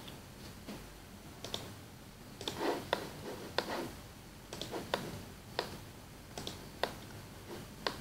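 Computer mouse clicking: about ten sharp single clicks at irregular intervals.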